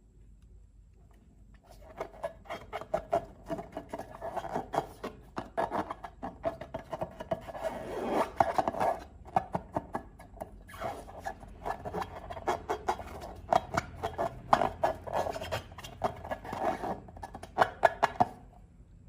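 Slime being worked, with rapid, sticky clicks and pops coming in dense runs. There is a short lull about halfway through.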